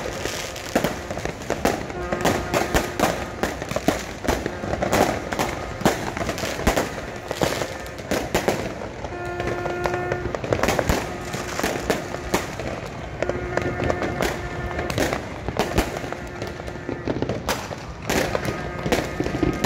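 Fireworks bursting and crackling in rapid, continuous succession, over the voices of a large crowd. From about halfway through, a steady horn-like tone sounds several times, each for a second or two.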